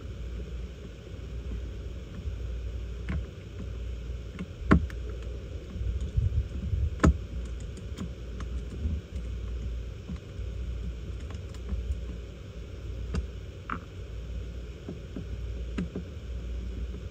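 Scattered clicks and knocks of hand tools, screws and plastic and metal parts being handled while taking apart a semi truck's heater box, with two louder knocks about 5 and 7 seconds in, over a steady low rumble.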